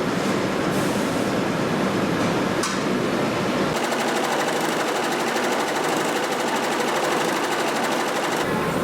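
Workshop machinery running steadily. Nearly four seconds in, the sound switches to the fast, even chatter of an embroidery machine stitching, which stops abruptly shortly before the end.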